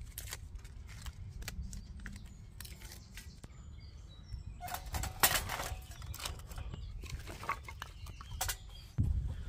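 Dry leaves and twigs rustling and crackling as they are handled and loaded into a folding stainless-steel wood-burning stove, with scattered clicks and a denser burst of crackling about five seconds in, over a steady low rumble.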